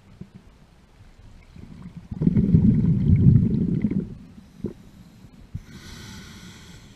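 Scuba diver breathing through a regulator underwater: a loud rumble of exhaled bubbles about two seconds in, lasting about two seconds, then a hissing inhale through the regulator near the end.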